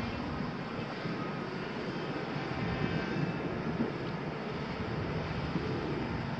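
Diesel engines of a Volvo crawler excavator and a wheel loader running steadily together, a continuous low drone of heavy earthmoving machinery.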